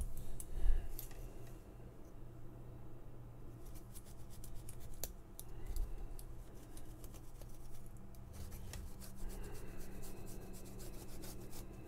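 A cloth dampened with rubbing alcohol being rubbed and scrubbed over the inside of a remote control, with uneven scratchy strokes and small clicks, cleaning hand oils off the buttons and contacts that stop the buttons working.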